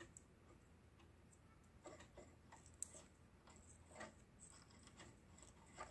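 Near silence, with a few faint, scattered small clicks from fingers handling a plastic sewing-machine bobbin while thread is wrapped around it by hand.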